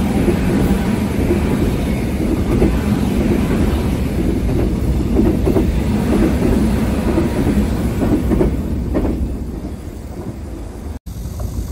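Electric commuter train crossing a concrete rail overpass directly overhead: a steady rumble with wheel clatter over the rail joints, dying away about nine to ten seconds in. After a brief gap near the end, the rumble of another train starts to build.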